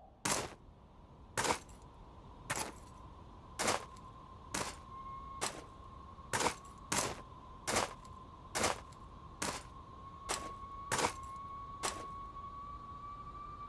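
Cartoon footsteps at a slow walking pace, about fourteen sharp separate steps roughly one a second, over a faint steady whistling wind.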